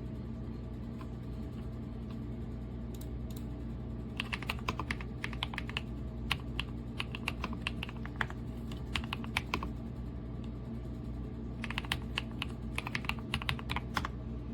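Typing on a Kisnt 85-key gasket-mounted mechanical keyboard with linear switches. There are two runs of quick keystrokes: the first starts about four seconds in and lasts some six seconds, the second comes near the end. A steady low hum runs underneath.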